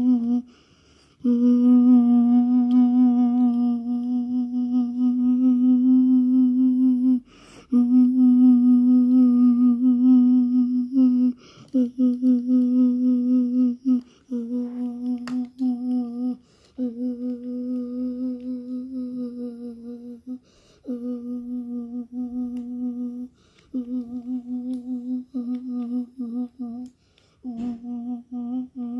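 A person humming one steady low note, held for several seconds at a time and broken by short pauses for breath, about eight times over.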